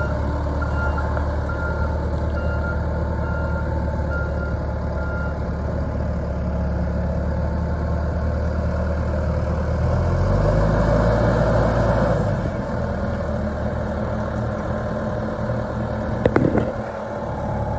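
Volvo BL70B backhoe loader's diesel engine running steadily while its reversing alarm beeps through the first few seconds. About ten seconds in the engine revs up, then eases back, and a couple of sharp clanks sound near the end.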